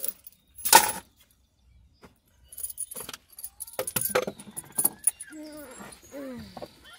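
A loud short rustle about a second in, then a run of metallic jingling and clicking, and several short falling squeaky sounds near the end.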